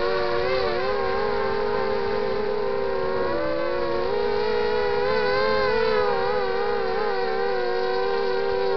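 Four Emax 2300 kV brushless motors and propellers of a 250-size FPV racing quadcopter whining in flight, heard on board. Several close pitches waver against each other as the throttle shifts, with a brief dip and wobble in pitch about three and a half seconds in.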